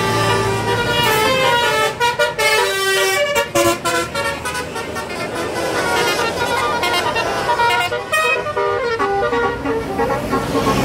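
Bus 'telolet' horn, a multi-tone air horn, playing a quick melody of changing notes, with a few brief breaks in the sound between about two and four seconds in.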